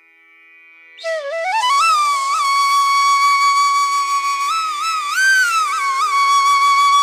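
Background music: a flute melody comes in about a second in over a steady drone, rising and then holding a long note with small ornaments.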